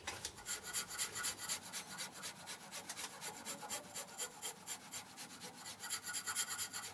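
A hand file rasping in quick, even back-and-forth strokes, several a second, with no break.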